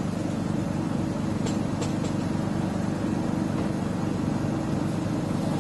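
Steady low engine hum from a parked food truck running at idle.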